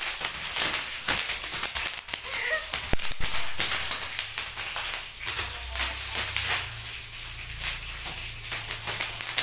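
Bubble wrap popping under a child's bare feet as she runs and walks across it: a fast, irregular stream of sharp pops and crackles.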